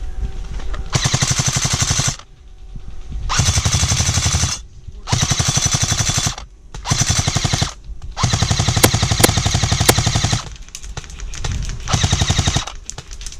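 Airsoft gun firing on full auto in about seven rapid bursts, each from half a second to two seconds long, with short pauses between.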